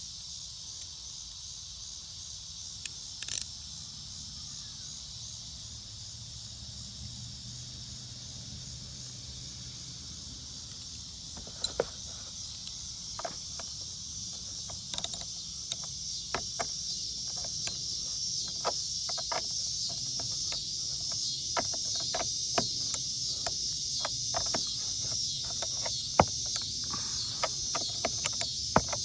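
Crickets chirping steadily as a high background chorus, with irregular sharp metallic clicks from a wrench tightening the nut on a negative battery terminal clamp. The clicks come more often in the second half.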